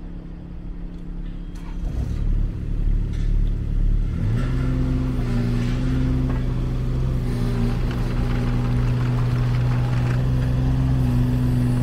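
Kubota KX016-4 mini excavator's three-cylinder diesel engine running. It gets louder about two seconds in, then its speed rises at about four seconds and holds steady at higher revs.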